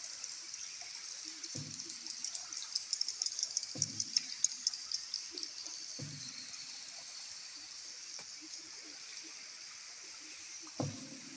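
A boat paddle dipping and pulling through the water every two seconds or so, over a dense, high chirping and clicking that fades somewhat after the first few seconds.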